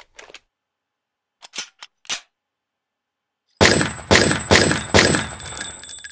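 Handgun-shot sound effects fired in a rapid run of about five shots, starting a little past halfway, with spent shell casings clinking and ringing on concrete over them. A few faint clicks come before the shots.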